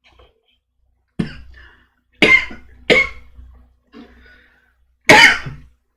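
A man coughing several times: a short cough about a second in, two close together a little after two seconds, and the loudest near the end.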